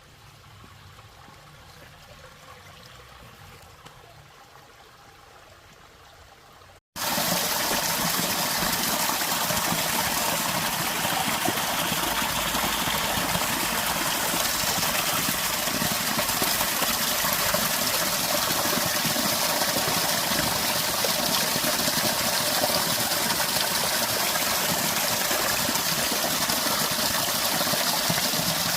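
Steady rush of flowing water, starting suddenly about seven seconds in after a quieter stretch of faint outdoor sound.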